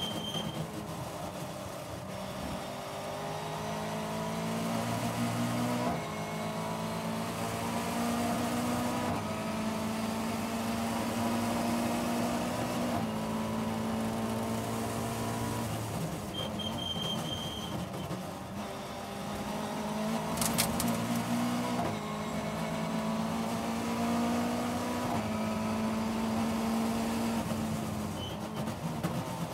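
Caterham 420R race car's 2.0-litre Ford Duratec four-cylinder engine running hard at high revs through a racing lap, heard onboard with wind rush. The engine note climbs and then steps abruptly every few seconds at the gear changes. One sharp knock comes about two-thirds of the way through.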